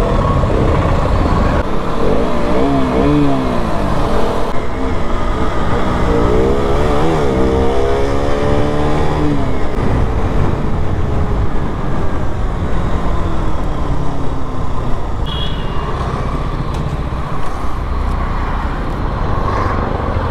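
KTM RC sport bike's single-cylinder engine pulling away and accelerating, its pitch rising twice as it climbs through the gears, then running steadier at cruising speed.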